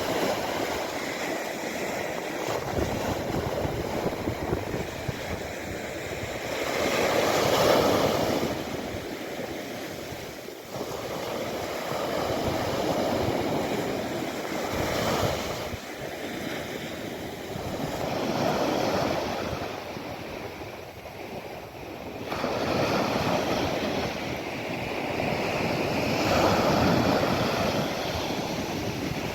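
Mediterranean Sea waves breaking and washing on the shore, a continuous rushing that swells and falls back every few seconds.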